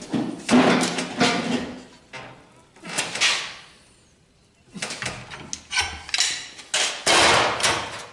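Steel tools being handled on a workbench: a large pipe wrench taken off a bent leaf-spring blank in a vise and laid down, making a series of short metal clanks and scrapes with a pause in the middle.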